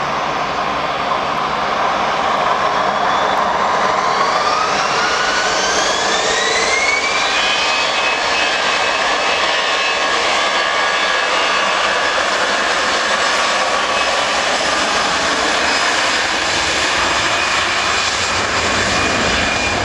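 Jet airliner engines running loud. A whine rises in pitch about four to seven seconds in, then holds steady over the roar.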